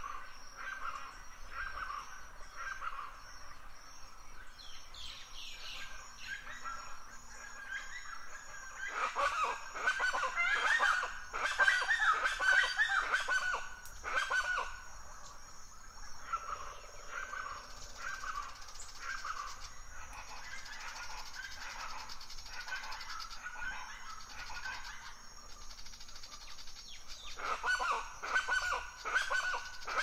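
Forest birds singing and calling, short repeated chirps throughout, with a louder run of rapid chirping calls from about nine to fourteen seconds in and again near the end.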